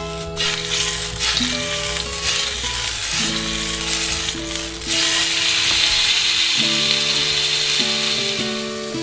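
Meat sizzling as it is laid into a hot frying pan. The sizzle grows louder about five seconds in, over soft background music.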